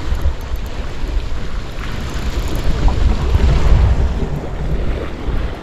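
Wind buffeting the camera microphone in a low rumble, over sea waves washing against the concrete blocks of a breakwater.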